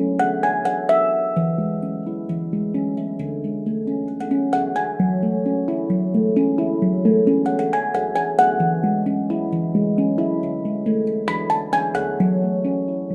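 A stainless-steel Veritas Sound Sculpture handpan in F# Pygmy, 18 notes, played by hand: a steady flow of struck notes that ring on and overlap, with a few sharper taps among them.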